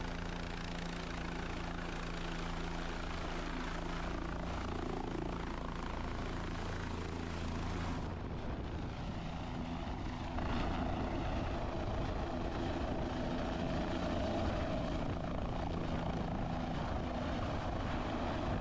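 Helicopter's main rotor and turbine engine running, a steady hum with low tones that gets louder about ten seconds in.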